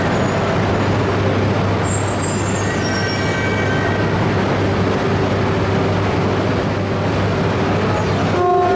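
Steady low hum and running noise of a Tsubasa Shinkansen train standing at the platform, nose cover open and waiting to couple. Faint high squeals come about two to three seconds in, and a short tone sounds near the end.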